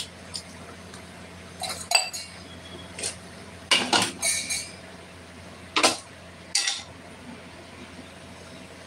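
Metal cookware clinking and clattering as a kadhai and pans are lifted, moved and set down on and beside an induction cooktop, with a handful of knocks, the loudest about two, four and six seconds in. A steady low hum runs underneath.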